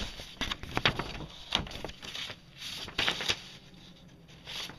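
Paper rustling and crinkling as a large folded paper map and letter are handled: an irregular run of short crisp crackles, busiest in the first three seconds and thinning out near the end.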